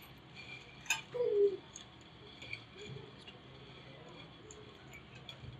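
Dry noodle sticks sliding and scraping over a metal platter as they are pushed into a pot, with faint light clinks and one sharp click about a second in.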